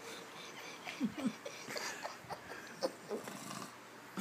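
A sleeping man snoring in short, irregular snorts, the kind of snoring the filmer puts down to undiagnosed chronic sleep apnea.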